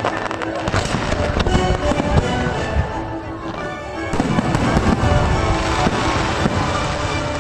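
Fireworks bursting in rapid succession, many sharp bangs and crackles, over music.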